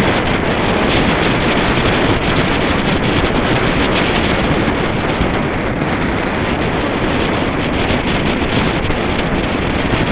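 Steady wind rush buffeting an action camera's microphone on a road bike moving at speed.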